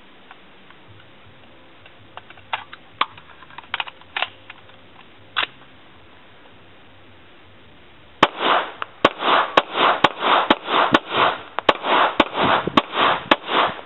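5.56 mm AR15 pistol with a 10.5-inch barrel firing through a Surefire Mini suppressor: a string of about a dozen suppressed shots, two or more a second, starting about eight seconds in after a few light clicks.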